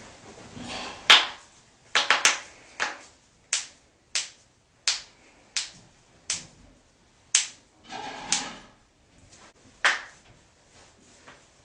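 A series of sharp joint cracks, about a dozen pops, coming roughly one every two-thirds of a second through the middle, with the loudest crack about a second in.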